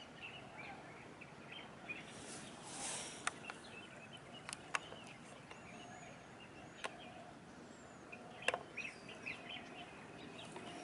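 Faint outdoor ambience with small birds chirping again and again, now and then a thin whistled call. A few sharp clicks stand out, the loudest a little before the middle and about three-quarters through, and there is a brief hiss about two seconds in.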